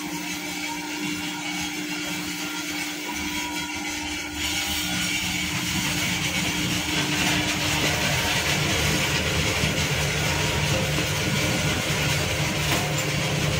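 Wet mix macadam plant machinery running: a steady mechanical din of motors and material handling with a low hum, growing louder about four seconds in.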